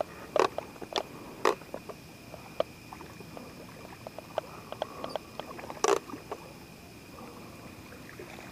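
Irregular clicks, taps and knocks from handling a freshly landed brown bullhead and the fishing gear, two of them sharper than the rest, over a faint steady high-pitched hum.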